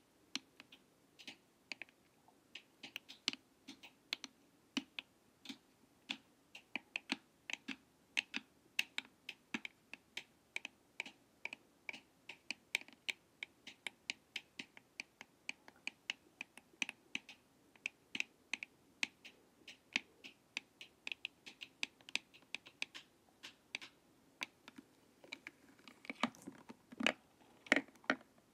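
Light tapping on a glossy plastic face mask with the tips of two thin sticks: quick, irregular clicks a few times a second, with a few louder taps near the end.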